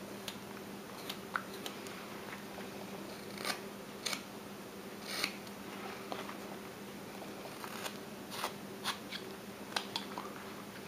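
Carving knife whittling a small block of wood by hand: about a dozen short, crisp slicing cuts at irregular intervals as chips come off, over a steady low hum.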